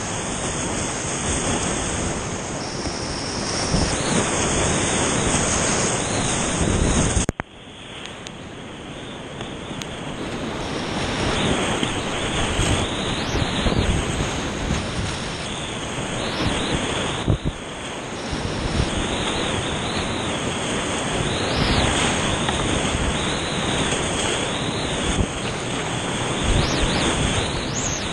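Whitewater rapids rushing loudly around a kayak, heard close up with water splashing over the bow. About seven seconds in the sound drops sharply and comes back muffled, building up again over the next few seconds.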